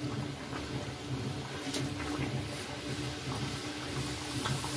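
Gujiya deep-frying in hot oil in a kadhai: a steady sizzle and bubbling of the oil. A faint steady hum runs underneath, and there is a single light click.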